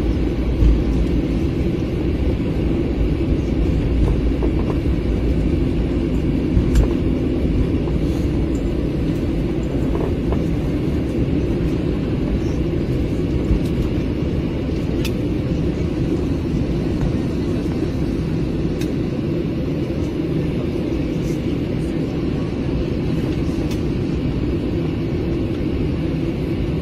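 Jet airliner cabin noise while rolling on the runway after landing: a steady low rumble of engines and wheels, heaviest in the first several seconds and easing off later, with a few faint clicks.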